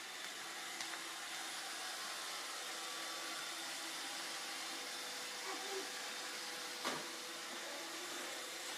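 Roomba robot vacuum running steadily out of sight, sounding as if it is stuck somewhere; a sharp knock about seven seconds in.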